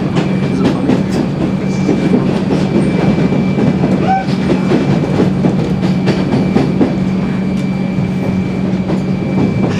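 Inside a moving electric suburban train carriage: a steady low hum and rumble, with scattered clicks from the wheels on the track.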